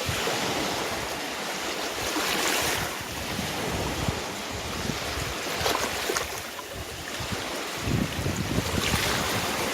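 Sea waves washing onto the shore, the surf swelling about every three seconds, with wind buffeting the microphone.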